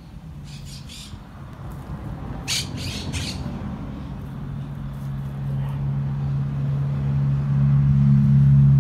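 Toona 5024HS fast swing-gate motor running as it swings a steel gate closed: a steady low hum that grows louder. Near the start a bird squawks twice, then three more times a couple of seconds later.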